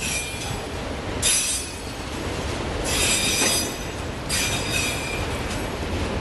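Freight train of autorack cars rolling past, a steady rumble of steel wheels on rail with four high-pitched metallic wheel squeals: just at the start, about a second and a half in, a longer and louder one about three seconds in, and one near the end.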